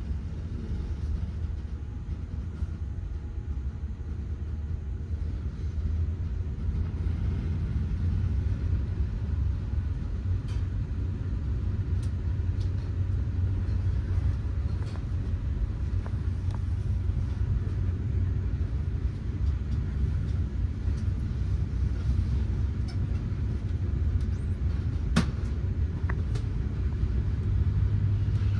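Steady low rumble of a moving train heard from inside the carriage, with a single sharp click near the end.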